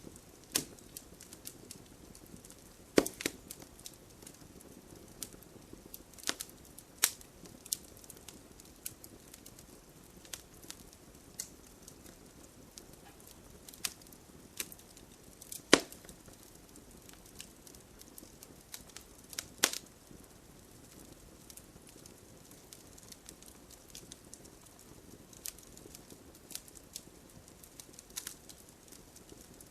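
Wood fire of burning logs crackling, with a soft steady hiss under frequent small snaps and a few loud sharp pops, the loudest about 3, 7, 16 and 20 seconds in.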